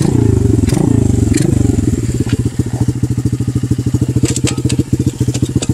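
Xpro Sail 125cc pit bike's single-cylinder four-stroke engine, its revs falling as the bike slows to a stop, then idling with an even putter from about two seconds in.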